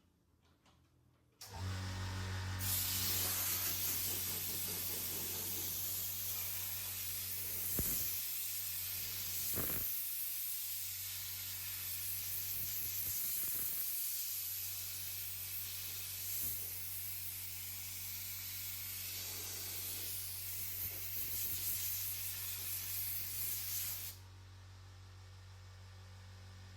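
Steady hiss of compressed air from a pneumatic air gun over a low electrical hum. The hiss starts about two and a half seconds in, runs for about twenty seconds and cuts off near the end, while the hum carries on.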